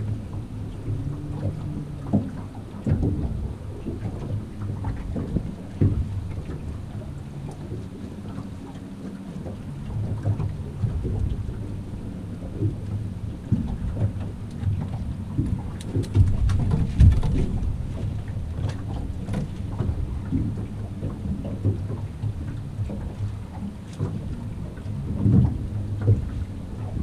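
Wind buffeting the microphone and water slapping against the boat hull, with scattered knocks and a short burst of clatter about sixteen seconds in.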